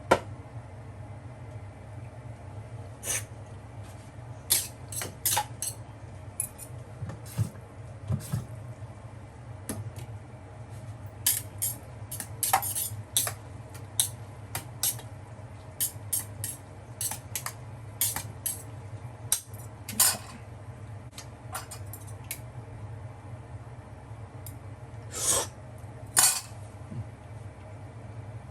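Metal utensils clinking and scraping against dishes and cookware, in irregular sharp taps with a few longer scrapes, over a steady low hum.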